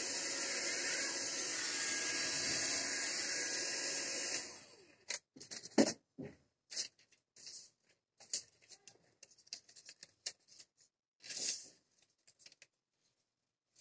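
Coil-winding machine running steadily as it winds wire onto an output-transformer bobbin, then winding down and stopping about four seconds in. After that, scattered light clicks and paper rustling as a sheet of insulating paper is handled and laid over the winding.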